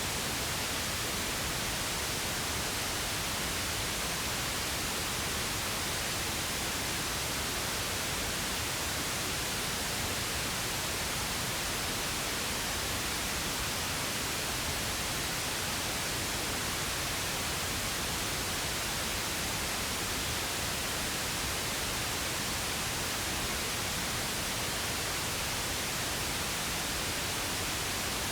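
Steady pink noise, an even hiss with no change or events.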